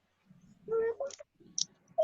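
A short indistinct voice sound about halfway in, then a single sharp high click.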